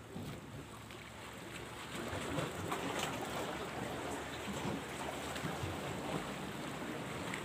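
Small sea waves washing against a rocky shoreline, a steady rush of water that grows louder about two seconds in.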